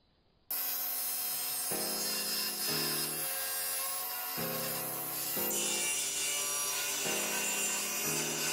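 Wood being sawn by hand, a steady run of back-and-forth strokes that starts abruptly about half a second in. A ringing tone shifts in pitch roughly once a second.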